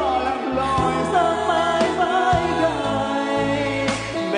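A man singing a slow song into a microphone, amplified through PA speakers over a backing track with sustained bass notes and a few drum hits. It is a sound check of the sound system.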